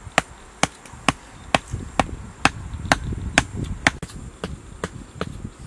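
Food being chopped by hand in a steady rhythm: sharp, short knocks about two a second.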